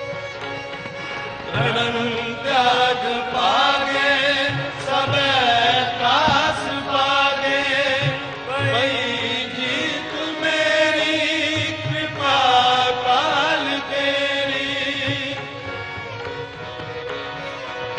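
Sikh shabad kirtan in classical raga style: a man's voice singing long, ornamented melismatic phrases over a steady instrumental drone. The voice comes in about a second and a half in and drops out near the end, leaving the drone.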